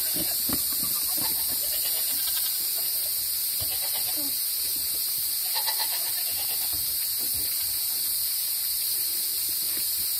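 Steady high-pitched chorus of night insects, with a goat bleating briefly a few times, loudest about five and a half seconds in.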